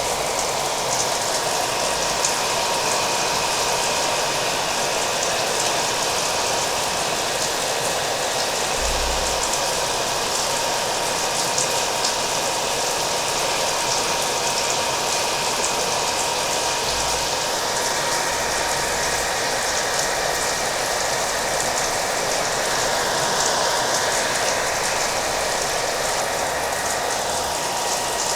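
Hair dryer blowing steadily, with a constant whine, mixed with a continuous wash of rain.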